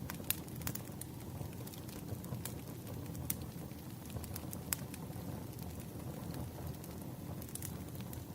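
Wood campfire burning with a steady low rumble and scattered sharp crackles and pops, a few louder snaps among them.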